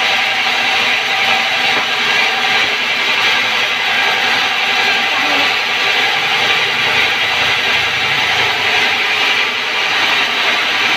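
Sawmill band saw headrig running steadily without cutting: a constant loud machine hum and whine that holds level throughout.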